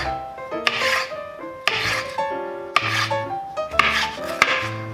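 Chef's knife slicing through strips of red bell pepper on a wooden cutting board: a rasping cut about once a second, with an occasional tap of the blade on the board, over background music.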